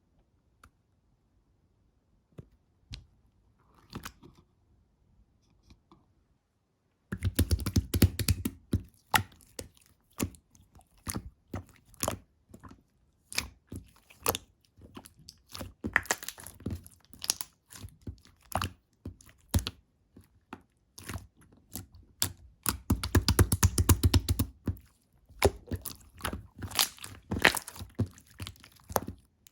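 Pink semi-transparent slime squeezed and pressed by hand, making a dense run of sticky clicks and pops. It starts about seven seconds in after a few faint clicks, with two louder, thicker spells of squishing, one as it starts and one about two-thirds of the way through.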